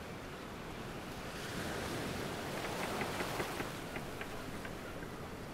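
Ocean waves and wind, a steady rushing that swells up about a second and a half in and eases off again, with a few light ticks in the middle.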